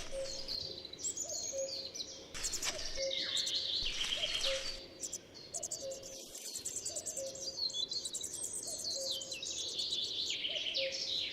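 Small songbirds chirping, many short, high, quick falling calls in rapid succession, over a short low note that repeats about every half second.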